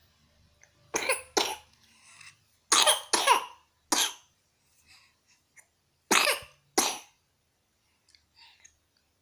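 A person coughing in three bouts: two coughs about a second in, three more around three to four seconds in, and two more around six seconds in, with faint breaths between.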